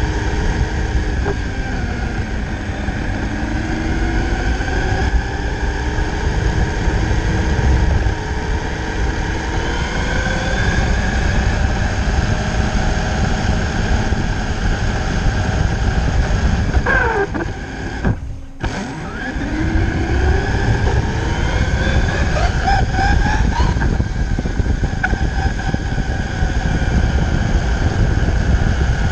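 Electric motor and gears of an RC truck on a G6-01 chassis whining as it drives, heard from a camera mounted on the truck itself over heavy rumble from the tyres and chassis. The whine falls and rises with the throttle, cuts out briefly about two-thirds of the way through, then climbs again.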